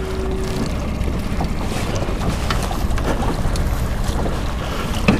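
Steady wind noise on the microphone over a low rumble from a small boat on open water, with a few faint clicks.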